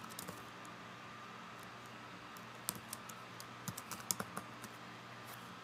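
Typing on a computer keyboard: irregular clusters of faint key clicks with short pauses between them, over a steady low hum.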